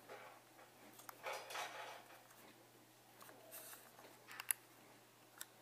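A few faint clicks and scrapes of a small screwdriver driving a screw into the plastic rear mount of a Canon EF 50mm f/1.8 II lens, with fingers handling the lens body.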